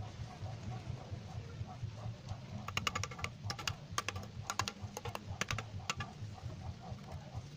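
A metal trowel blade clicking and tapping against the metal burner ring and pan supports of a gas stove as wet cement is worked around the burner. It makes a quick, uneven run of about a dozen sharp clicks from about three to six seconds in.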